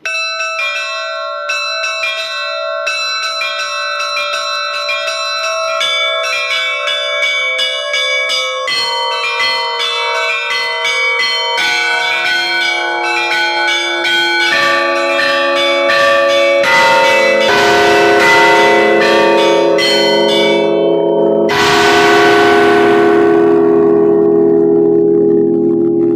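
Orthodox church bells rung by hand in a bell tower: quick repeated strikes on the small bells, with deeper bells joining one after another so the ringing grows fuller and louder. A heavy strike of a large bell comes about 21 seconds in.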